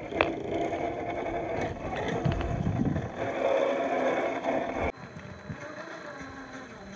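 Electric motor and geared drivetrain of a scale RC crawler whining, the pitch wavering with throttle as it crawls over rough ground, with a rougher, noisier stretch about two seconds in. The sound drops off abruptly about five seconds in.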